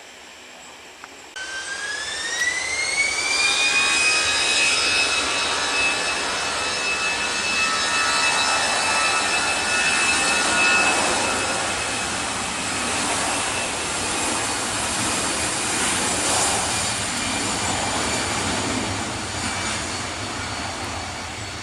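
Airbus A320 jet engines spooling up: a whine rises for a couple of seconds, then holds at a steady high pitch over a loud roar, which slowly eases near the end.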